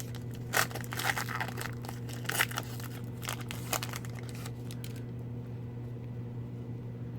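A hockey card pack's wrapper being torn open and crinkled by hand: a quick run of crackles and rips that stops about four and a half seconds in.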